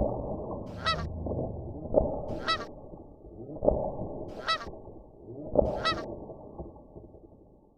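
Four short goose-like honks, each about a third of a second, spaced about one and a half to two seconds apart, over a muffled background with several sharp thumps.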